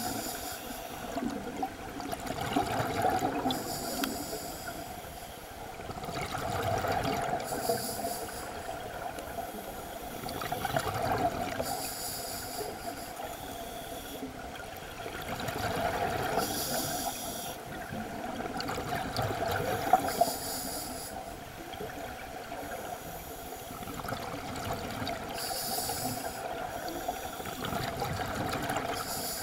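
Scuba diver breathing through a regulator underwater: a short hiss on each breath in, then a longer gurgling rush of exhaled bubbles, repeating every four to five seconds. One sharp knock about two-thirds of the way through.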